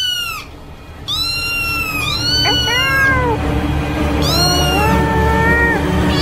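A series of cat meows, several overlapping, each rising and then falling in pitch, over a low, dark music bed that swells in about a second in.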